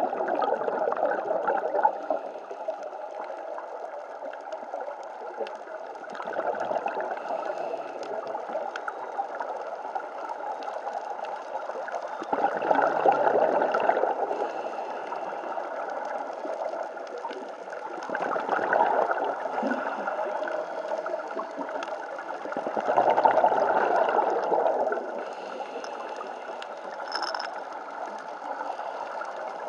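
Scuba divers breathing through their regulators underwater: each exhalation gurgles out as a burst of bubbles lasting about two seconds, about every five to six seconds, over a steady underwater hiss.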